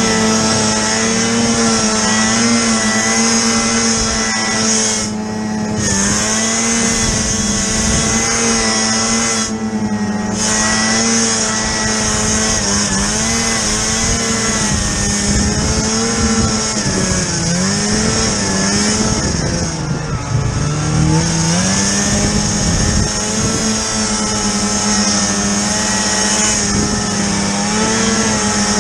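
Snowmobile engine running at steady high revs, easing off and picking back up a little past halfway through.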